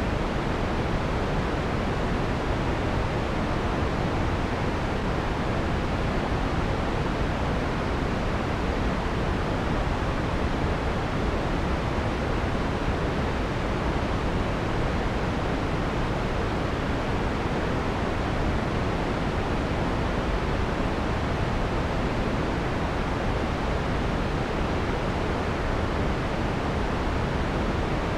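Steady generated white noise, filtered to take off the harsh high end. It is an even hiss that never changes.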